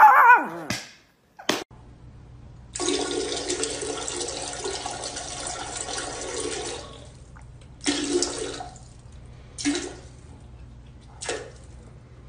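A toilet flushing, a rushing, swirling water sound lasting about four seconds, followed by several shorter bursts of rushing water. In the first half-second a dog's howl dies away.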